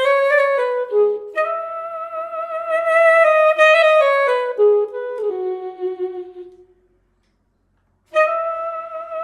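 Sampled saxophone (VHorns virtual instrument) played from an EWI wind controller, a solo melodic phrase with an old-style vibrato. It ends in a falling run that fades out about two-thirds of the way through, then after a short silence a new phrase begins near the end.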